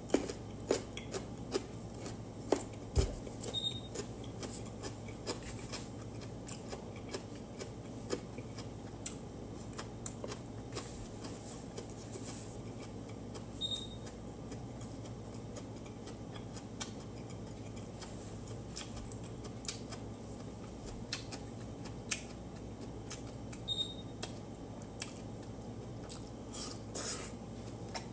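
A person eating with chopsticks: chewing, with scattered small clicks of the chopsticks against bowls and plates, over a steady low hum.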